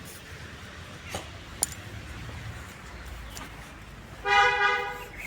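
A vehicle horn sounds once, a steady flat-pitched honk just under a second long about four seconds in, over low background with a few faint clicks earlier.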